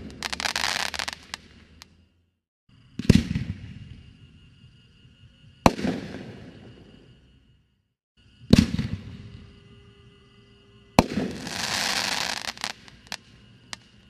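Brothers Pyrotechnics single-shot aerial firework tubes. A crackling burst dies away, then come two shots, each a launch thump from the tube followed about two and a half seconds later by the sharp bang of the shell breaking. The second break runs on into a dense crackle for over a second, ending in a few last pops.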